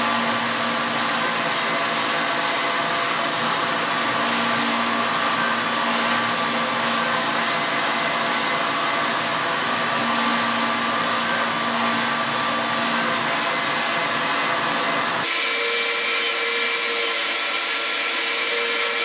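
Tormach CNC mill spindle running while a tool bores holes in an aluminium plate, a steady machine whine with a few held tones over a constant hiss, with coolant sprayed from a nozzle at the cut. About three-quarters of the way through the sound changes abruptly: the low rumble drops away and a different steady tone takes over.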